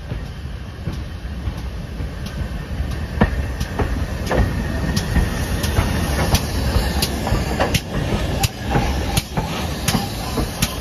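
Steam train moving slowly along the platform with a low rumble and a run of sharp clicks and knocks that come quicker and louder as it goes.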